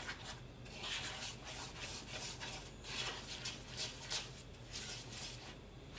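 Egg and cornstarch batter being stirred in a bowl: soft, repeated scraping strokes.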